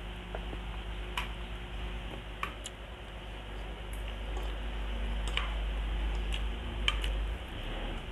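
Close-miked eating: a mouthful of rice and fish being chewed, with a handful of sharp, wet mouth clicks and lip smacks scattered through, over a steady low hum.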